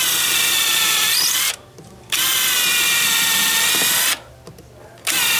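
Bosch 18-volt cordless drill boring a pilot hole into a wooden block with a small bit, run in three steady high-pitched spurts with short pauses between them. The hole is pre-drilled so the screw will not split the wood.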